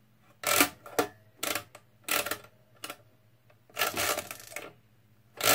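Marchant XL pinwheel mechanical calculator being worked by hand: its number-setting levers click and its crank is turned through a rotation to add, making a series of metallic clunks and rattles. Some clunks leave a brief ringing after them. The longest rattle comes about two thirds of the way in.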